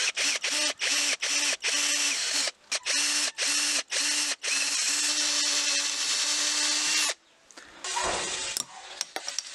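Small handheld power tool switched on and off in quick short bursts, about three a second, then run steadily for about two and a half seconds and stopped sharply. A dull thump follows about a second later.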